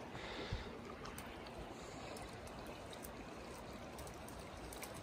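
Faint, steady sound of flowing river water.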